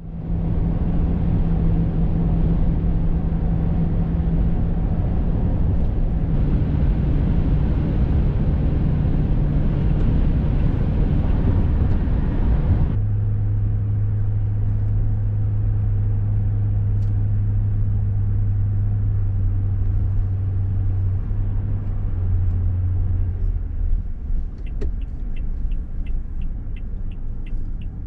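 Car running on the road, heard from inside the vehicle: a steady low engine and road drone that steps down in pitch twice. Near the end a fast, even ticking starts.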